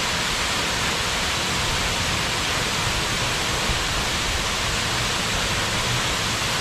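A large waterfall's water falling, a loud, steady rushing noise with no change.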